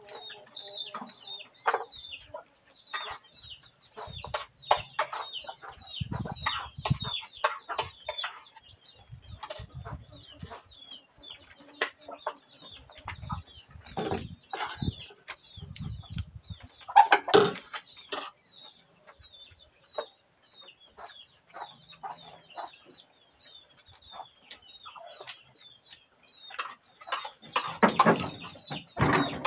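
Chickens clucking, with many high short chirps throughout. Scattered short clicks and knocks of eating at a wooden table run beneath, loudest about 17 seconds in and again near the end.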